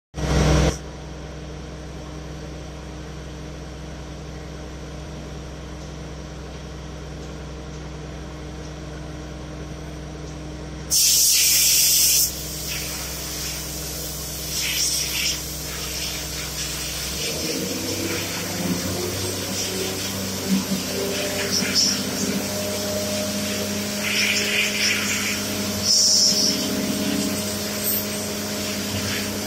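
Workshop machinery humming steadily, with bursts of compressed air hissing from an air blow gun. The loudest blast comes about 11 seconds in and lasts over a second, followed by several shorter hisses.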